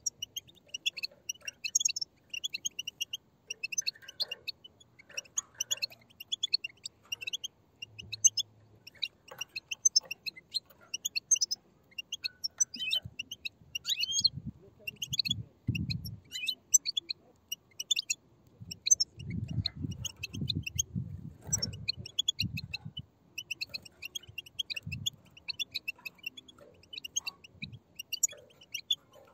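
A group of European goldfinch chicks giving rapid, overlapping high chirps: the begging chatter used to stir caged goldfinches into song. Low muffled thumps come in two short stretches partway through.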